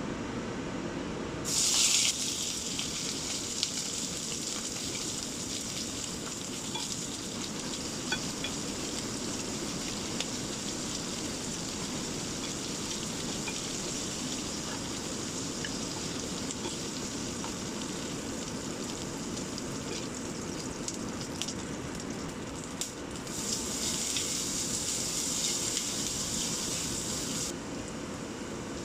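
Food frying in oil in a hot pan, sizzling steadily. The sizzle flares up loudly for a moment about two seconds in, and rises again for a few seconds near the end.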